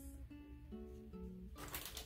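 Soft background music of plucked-string notes, with a brief rustle near the end.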